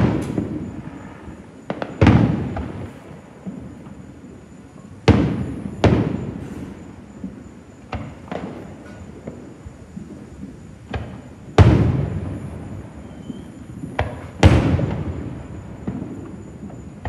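Aerial firework shells bursting in the sky: about half a dozen booms a few seconds apart, each followed by a rolling echo that dies away over a second or two, with fainter pops between.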